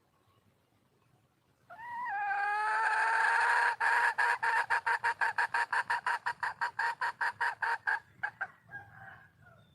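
Wild junglefowl hen calling for a mate: a loud call starts about two seconds in and breaks into a fast run of even clucks, about seven a second. The run stops abruptly about eight seconds in, and a few last clucks follow.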